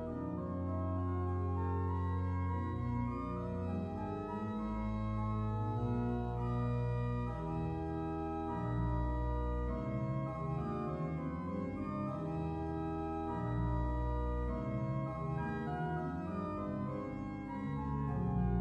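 Organ music: slow sustained chords over a moving bass line, changing every second or two.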